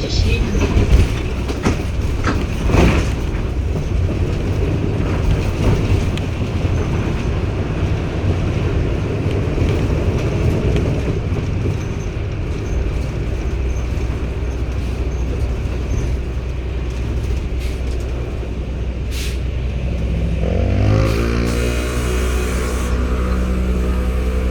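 Cummins ISB six-cylinder diesel of a BS090 city bus running: a steady rumble with rolling noise and a few knocks. About twenty seconds in, the engine's pitch climbs and then holds steady as it revs up.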